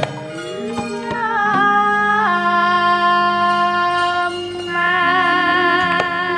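Javanese gamelan music accompanying a wayang performance. A long-held, wavering melody line steps down twice, then rises again near the end, over sustained lower tones.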